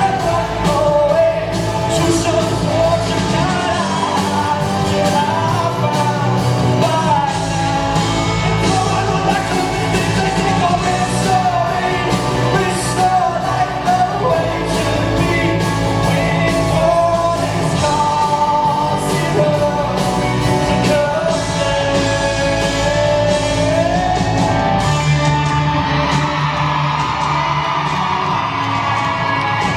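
Live rock band playing, with a lead singer carrying the melody over guitars, bass and drums, loud and steady.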